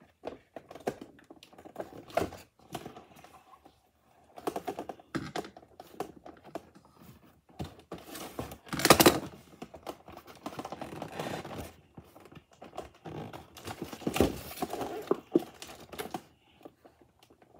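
Handling of a cardboard toy box with a plastic window: scattered clicks, knocks and rustling of cardboard and plastic, with a louder knock about nine seconds in and another near fourteen seconds.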